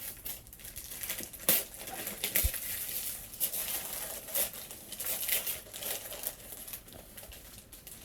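Paper being torn and crumpled as a gift is unwrapped: irregular crinkling and rustling, with sharp loud rips about a second and a half and two and a half seconds in.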